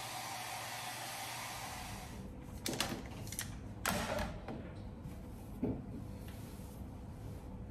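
Hand-held hair dryer blowing steadily, then switched off about two seconds in. It is followed by three short knocks or clatters.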